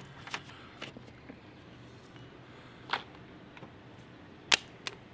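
A few light clicks and knocks of metal parts being handled, the two loudest about three seconds in and near the end: the old clutch hydraulic line and slave cylinder coming out of the engine bay.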